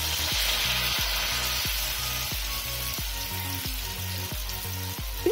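Batter-coated potato slices deep-frying in hot oil, a steady sizzle, with background music with a steady beat underneath.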